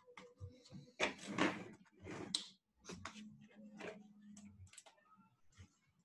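Plastic laptop chassis being gripped and lifted on a bench: scattered clicks, knocks and rattles of the plastic case, loudest in a cluster about a second in.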